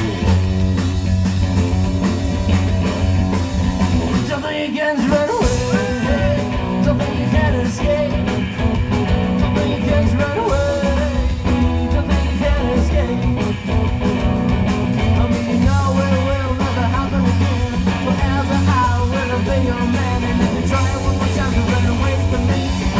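Live rock and roll band playing loud and steady: upright double bass, electric guitar and drum kit.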